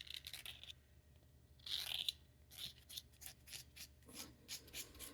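Razor blade shaving wood off a Conté à Paris Pierre Noire pencil in a series of short, faint scrapes, with one longer, louder stroke about two seconds in, as the blade works close to the lead.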